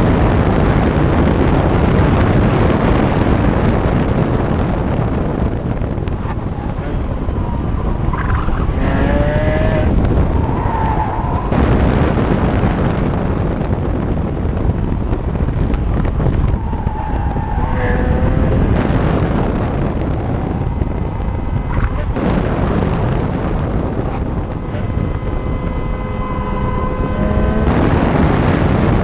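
Heavy wind rush and tyre and road noise from beside the front wheel of a Porsche 911 GT3 lapping a race track at speed, with its flat-six engine running underneath. Short squealing tones come a few times during the hard braking.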